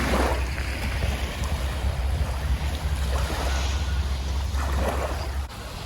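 Wind buffeting the microphone over the wash of a calm sea on the shore. The low wind rumble cuts off suddenly near the end.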